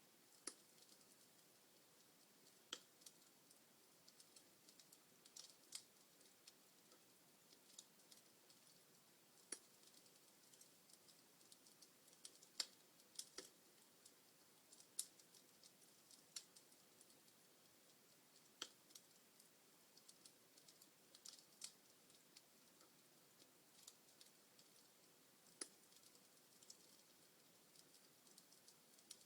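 Log fire in a fireplace crackling: sharp, irregular pops and snaps, roughly one a second, over a faint steady hiss.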